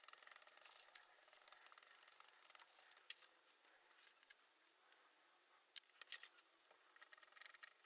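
Faint rubbing and handling of thin glued sapele veneer strips being pressed together on a plastic sheet, with a few light clicks and taps.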